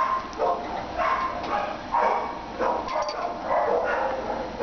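Dogs barking repeatedly, short calls coming about twice a second.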